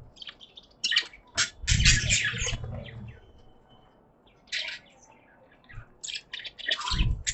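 Pet budgerigars chirping in short, scratchy bursts, with a quiet gap of about a second and a half in the middle.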